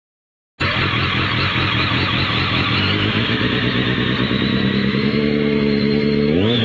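Motorcycle engine running at a steady idle through a Roncar Coyote SS1 aftermarket exhaust, cutting in abruptly a little way in. Near the end the throttle is blipped and the pitch rises.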